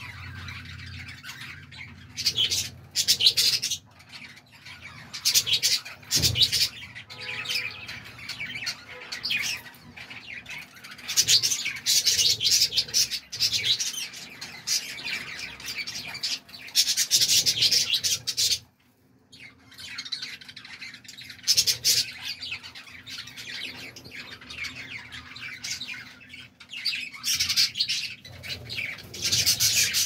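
A flock of budgerigars chirping and chattering, with louder bursts of calls every few seconds.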